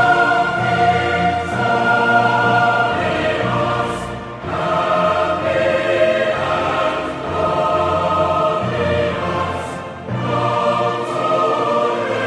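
Choir singing slow, held phrases over orchestral accompaniment. There are brief breaths between phrases about four seconds in and again near ten seconds.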